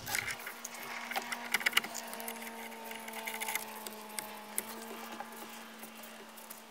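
Irregular small clicks and crackles of gloved hands handling a thick power cable and plastic parts around a truck's fuse box, over a faint steady hum.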